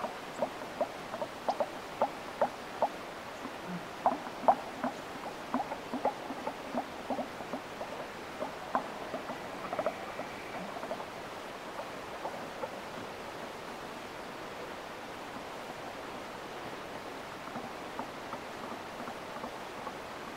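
Elk herd calling: many short, high cow and calf chirps and mews, several a second, thinning out after about twelve seconds, over a steady hiss of wind.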